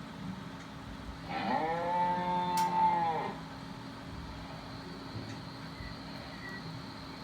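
A cow mooing once, a single call about two seconds long.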